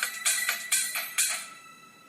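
A Sony Ericsson Z750i ringtone playing through the phone's small loudspeaker: electronic music with a quick beat of about four strokes a second. It stops about a second and a half in and fades away.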